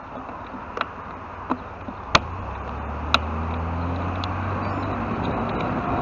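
Street traffic heard from a bicycle: a few sharp clicks in the first half, then a low steady car engine hum from about two seconds in, with road and wind noise on the microphone growing louder toward the end.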